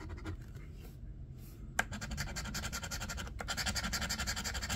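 Coin scraping the scratch-off coating from a lottery ticket in quick, repeated strokes. It is light at first, then fast and steady from about two seconds in.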